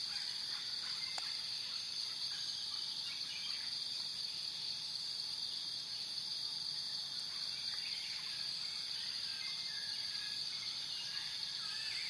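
Outdoor ambience: a steady high-pitched hiss with faint, scattered bird chirps. No call from the alpaca stands out.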